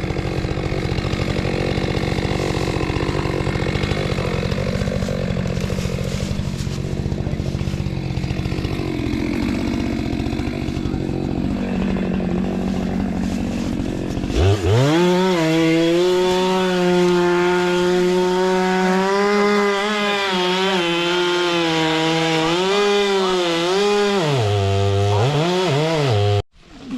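Chainsaw cutting through a fallen tree. About halfway through, the engine note rises to a clean high-revving whine that dips a few times, and then it cuts off suddenly near the end.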